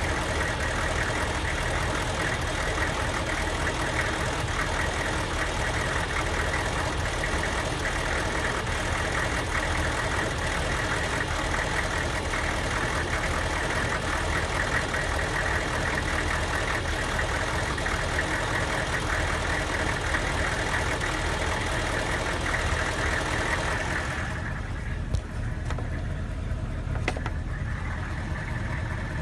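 Diesel van engine idling with a misfire, which the owner blames on an aftermarket computer tune. About 24 seconds in, the hissy upper part of the sound drops away suddenly, leaving the lower engine running, with a couple of clicks.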